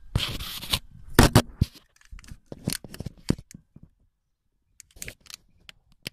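Irregular scraping, rustling and clicking handling noises: a long harsh scrape at the start, a few sharp loud clicks about a second in, scattered lighter clicks, then a pause and a few more clicks near the end.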